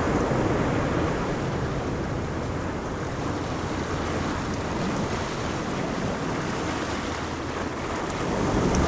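Ocean waves breaking and washing on a beach, a steady rushing surf that eases in the middle and builds again near the end.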